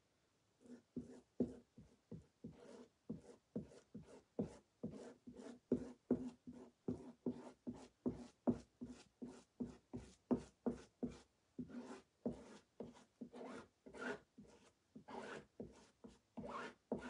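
Small plastic squeegee scraping chalk paste across a silkscreen stencil, skimming the paste through the mesh in short, quick strokes about three a second.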